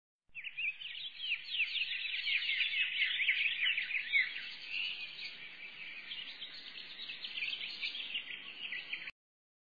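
Many small birds chirping together in a dense chorus of quick, high, falling chirps, which cuts off suddenly near the end.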